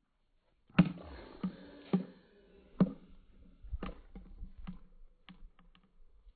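A series of about ten sharp knocks and clicks at uneven spacing, the first and loudest about a second in, the later ones weaker and coming closer together.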